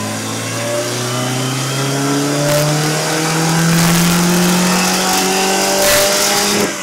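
Supercharged Toyota 2TR four-cylinder engine in a 2005 Tacoma making a full-throttle dyno pull, its note rising steadily in pitch as the revs climb. The sound cuts off suddenly near the end.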